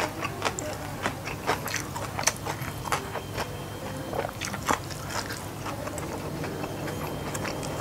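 Close-miked chewing and crunching of a mouthful of food, a run of irregular crisp clicks, with fingers picking at fried fish and rice by hand.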